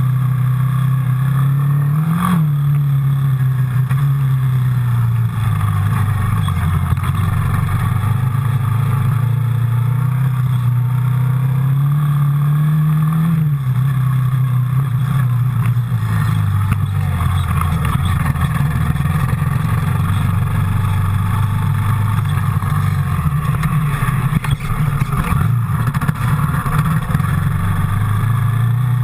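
Yamaha Raptor quad bike's single-cylinder four-stroke engine running under way, its revs rising and falling with the throttle: a quick blip about two seconds in, a slow climb that drops away around the middle, and another rise near the end.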